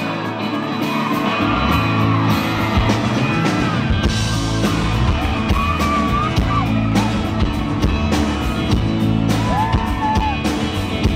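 A live pop-rock band playing a song's intro with a steady beat, the bass filling out about four seconds in, while the crowd screams and whoops over the music.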